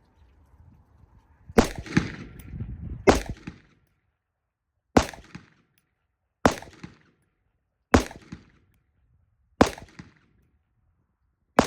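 Seven rifle shots from a Blackout Defense Quantum Mark II AR-15, fired singly at a slow, even pace about one every one and a half seconds, each sharp crack followed by a short ringing tail.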